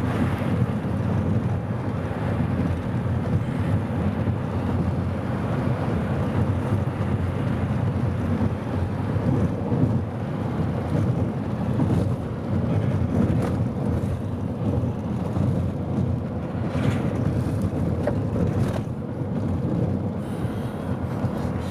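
Steady road and wind noise heard inside the cabin of a car driving along a paved highway, with a few brief sharper noises in the second half.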